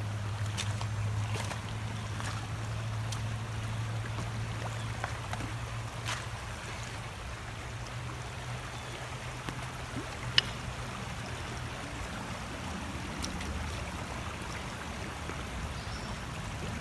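Shallow rocky creek running over stones, a steady rush of water, with a few light clicks and one sharp tap about ten seconds in.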